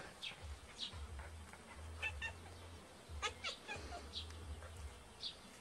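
A cat meowing faintly in short calls, several times over a few seconds.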